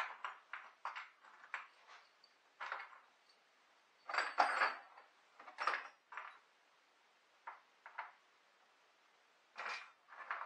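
Irregular metal clinks and clatters of tools and bolts being handled while a bench vise is bolted to a wooden workbench, the loudest cluster about four seconds in.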